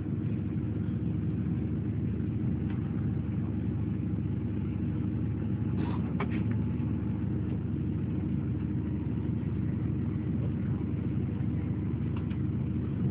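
Steady rumble of the Australind diesel railcar train heard from inside the passenger carriage while it runs, with a couple of brief clicks about six seconds in.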